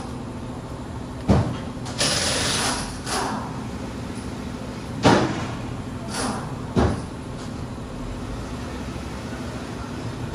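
Tools and parts being handled during a car's front brake pad change: three sharp knocks spread over several seconds, and a hiss lasting about a second, a few seconds in.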